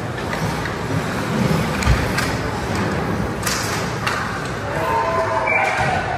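Ice hockey rink noise: a steady wash of arena sound broken by several sharp clacks between about two and four seconds in, with voices calling out near the end.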